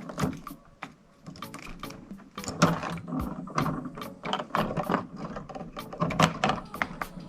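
Wire strippers and stiff electrical wires being worked by hand: a run of irregular sharp clicks and scrapes as the wires are straightened and stripped.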